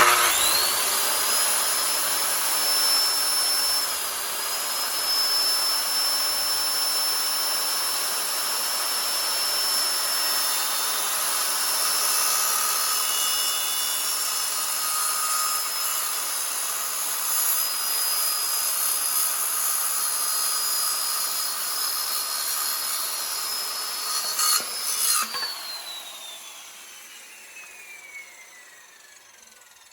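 Electric power saw cutting wood: the motor spins up with a quick rising whine, runs steadily through the cut with a brief dip in pitch about four seconds in, then is switched off about 25 seconds in and winds down slowly with a falling whine.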